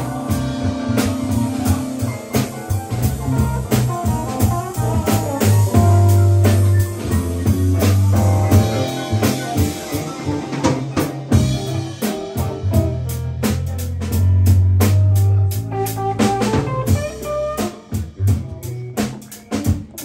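Live band playing: electric bass, electric guitar, keyboard and drum kit, with a strong bass line under regular drum hits.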